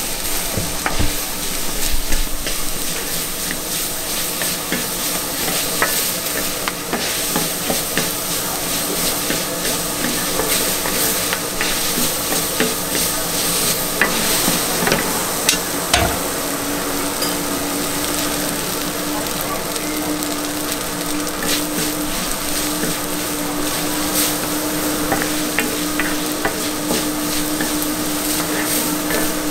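Food sizzling on a hot flat-top griddle as metal spatulas scrape and tap across the plate in frequent sharp clicks. A steady hum comes in about halfway.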